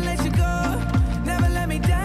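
Pop song music track in an instrumental stretch with no singing: a steady drum beat under a melody that slides between notes.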